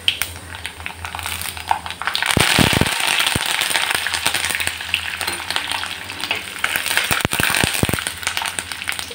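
Fresh curry leaves hitting hot coconut oil in a clay pot, sputtering and crackling loudly from about two seconds in. The leaves are then stirred with a spoon, with a few dull knocks about two and a half seconds in and again near the end.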